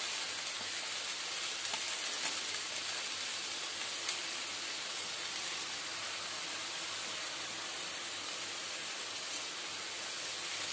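Steady sizzle of potatoes and Malabar spinach frying in oil in a pan on a low gas flame, with a few faint ticks as handfuls of leaves are dropped in.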